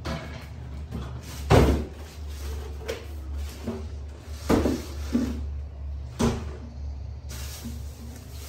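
Wooden door knocked and bumped about half a dozen times, sharp irregular thuds, the loudest about one and a half seconds in.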